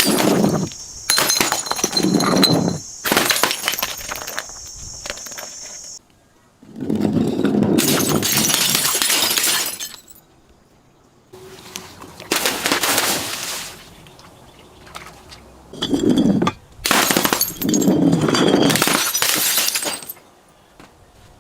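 Glass bottles and glasses being crushed and shattering, in about seven separate crunching bursts of half a second to three seconds each with quiet gaps between. A steady high whine runs under the first few seconds.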